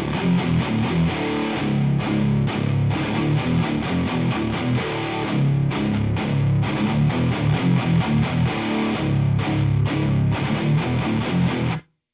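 Heavily distorted electric guitar playing chugging, palm-muted hardcore riffs through a 100-watt Marshall valve amp head. The playing cuts off abruptly near the end.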